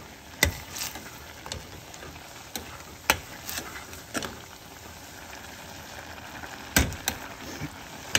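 Metal spoon stirring sprouted mung beans in a stainless steel pot, with a few sharp clinks of the spoon against the pot, over a steady sizzle from the hot pot.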